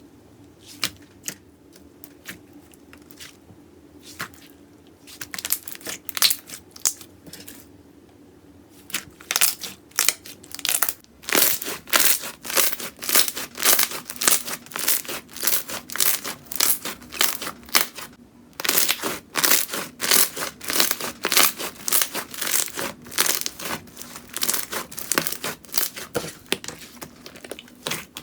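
Slime being pressed and worked by hand, giving crisp crackling clicks and pops: scattered at first, then coming thick and fast from about a third of the way in, with a brief pause about two-thirds of the way through.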